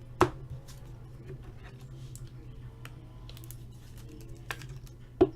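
Sharp taps and light clicks from hockey trading cards being handled on a tabletop: one loud tap just after the start, faint ticks in between, and two more taps near the end.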